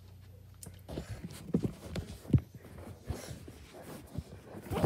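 Handling noise as the camera is moved and repositioned: a string of dull knocks and bumps against the microphone, with one sharp knock near the end.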